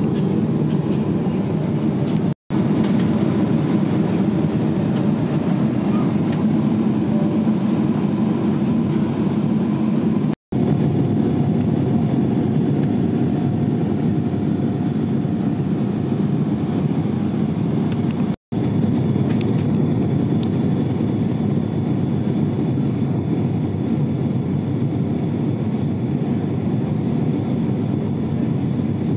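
Steady low rumble of a vehicle in motion, cutting out briefly three times.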